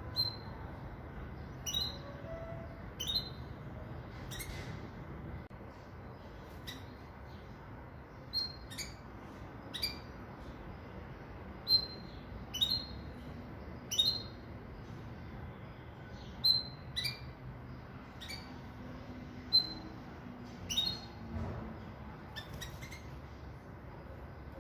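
Pintagol, a siskin × canary hybrid finch, giving short, sharp single chirps at irregular intervals, roughly one a second, over a steady low background hum.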